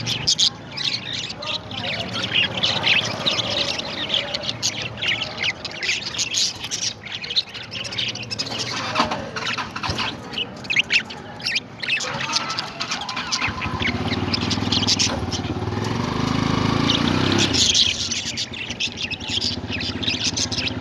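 Parrots chirping and squawking in many short, sharp calls. A low steady hum comes in at about two-thirds of the way through and stops near the end.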